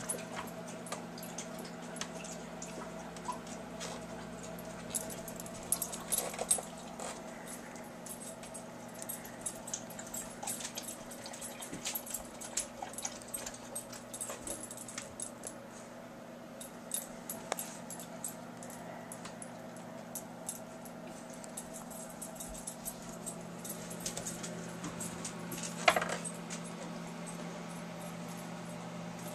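Dogs playing on a carpeted floor: scuffling with scattered light clicks and jingles over a steady low hum. One short, loud sound near the end stands out above the rest.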